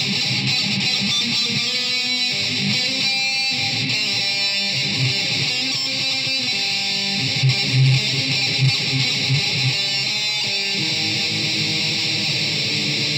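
PRS electric guitar played solo, an improvised run of changing single notes and strummed chords.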